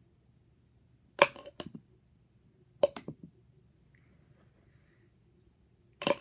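Wooden pencils tossed at a cup, clacking against it: a sharp clack about a second in with a lighter one just after, another pair near three seconds, and more at the very end.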